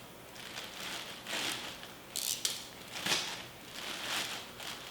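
Parcel packaging being opened by hand: several short bursts of rustling, crinkling and tearing.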